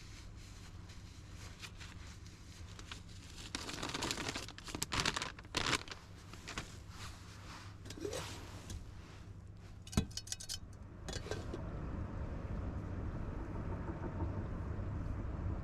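Rustling, crinkling and clicking of things being handled, with a sharp click about ten seconds in. From about eleven seconds a steady rushing noise sets in.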